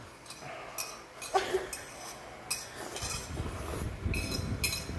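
Person drinking noodle broth straight from a glass bowl held to the mouth, with several light clinks of the glass. In the second half there is low rumbling gulping and handling noise close to the microphone.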